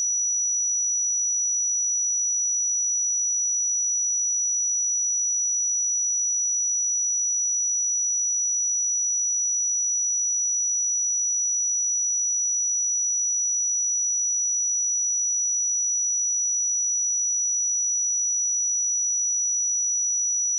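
A steady 5877 Hz sine-wave test tone: one pure, high-pitched note held at a constant level.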